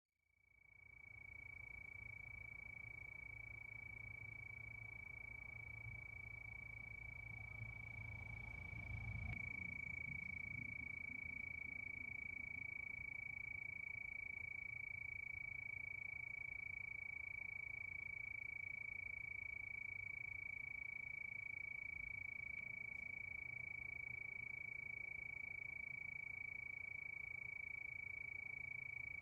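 Night chorus of crickets trilling steadily at one high pitch, fading in at the start, over a faint low rumble.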